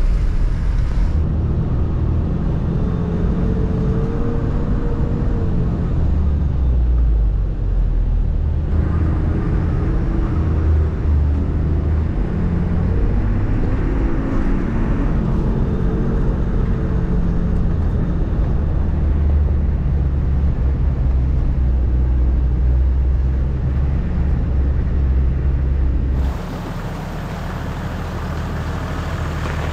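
Four-wheel-drive vehicle driving along a gravel track, with a steady low rumble of engine and tyres. About three seconds before the end the sound changes to a quieter engine crawling toward the camera, with a steady hiss.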